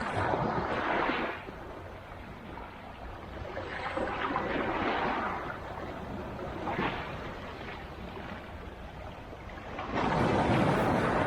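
Black Sea waves breaking on the shore: three surges of rushing surf, at the start, midway and near the end, with the sea's steady low wash between them.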